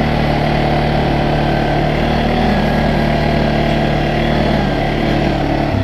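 Single-cylinder engine of a 2021 CFMOTO CForce 600 Touring ATV running steadily at an even speed, in low range.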